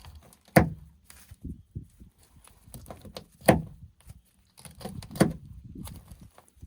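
Knife cutting through a grouse's wing joint as the wing is popped off: three sharp cracks spread over several seconds, with lighter clicks and handling noise between.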